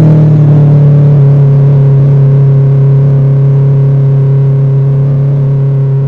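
Motorcycle engine running at a steady cruise as the bike is ridden, heard from an on-bike camera; the pitch dips slightly about a second in as the throttle eases, then holds.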